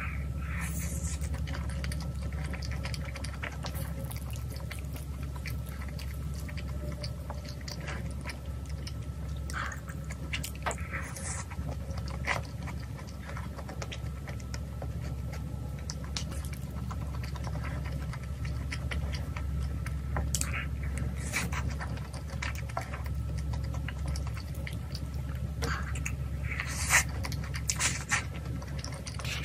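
Close-miked chewing of spicy tteokbokki with glass noodles, with scattered light clicks of a spoon on a small bowl, the sharpest one near the end. A steady low hum runs underneath.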